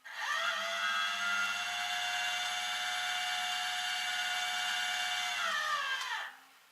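A small electric motor spins up quickly, runs steadily at one high pitch for about six seconds, then winds down and stops.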